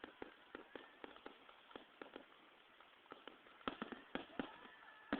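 Fireworks popping and crackling: irregular sharp reports, several a second, coming thicker and louder in the last couple of seconds.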